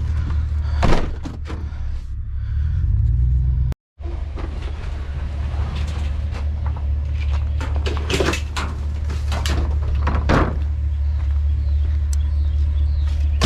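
Vehicle running, a steady low drone heard from inside the cab, with a few sharp knocks and rattles. The sound cuts out completely for a moment about four seconds in.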